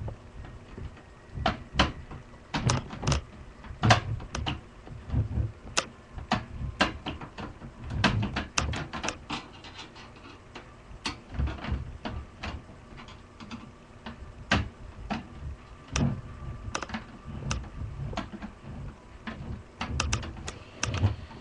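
Irregular clicks, taps and knocks of a screwdriver working at stubborn motherboard screws inside a desktop computer's case, with duller thumps as the case is handled.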